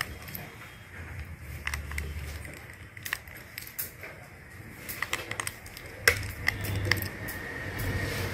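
Scattered small metallic clicks and clinks of a precision screwdriver working the screws inside a Redmi 6A phone, coming more often from about five seconds in.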